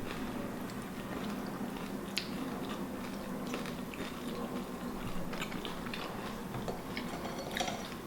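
A person chewing food, with scattered small wet clicks and mouth noises over a steady low hum.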